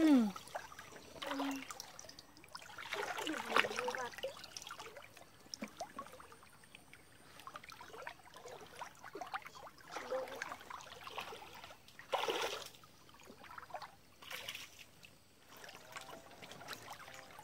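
Stream water trickling and swishing around legs wading through it, with scattered splashes, the loudest about twelve seconds in.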